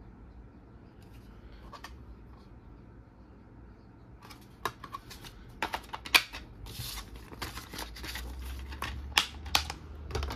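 Handling of a plastic DVD case: starting about four seconds in, a run of sharp plastic clicks and short rubbing sounds as the disc is pressed onto the case's centre hub and the case is shut.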